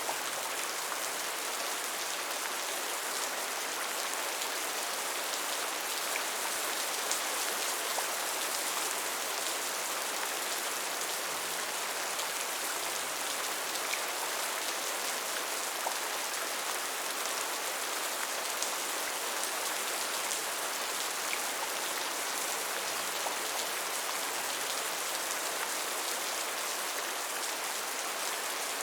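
Steady rain falling on a surface, an even hiss with faint scattered drop ticks and no change in intensity.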